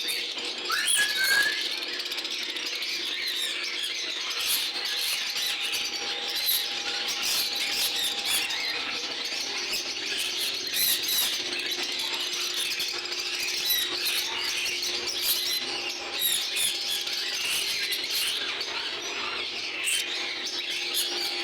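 Many caged lovebirds chattering and squawking together, a dense, unbroken mix of short shrill calls. A faint steady hum runs underneath.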